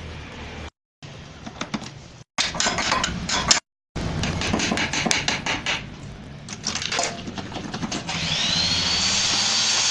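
Workshop repair noise on scooter engine parts: metal tools knocking, clicking and scraping in short bursts, broken up by edits. About eight seconds in a motor spins up into a rising whine that then holds at a steady high pitch.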